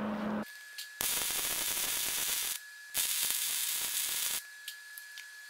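Electric arc welding with a 150-amp welder, laying weld into a bevelled V-notch joint on solid steel bar: two runs of steady crackling hiss about a second and a half each, with a short break between them. A faint steady high whine sounds under them throughout.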